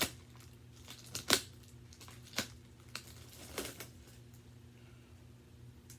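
Packaging being torn and crinkled as a cardboard box is opened: a few separate sharp rips and rustles, a second or so apart.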